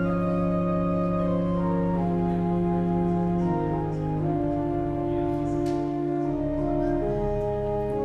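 Organ playing slow, sustained chords over a held pedal bass, the harmony shifting every second or so.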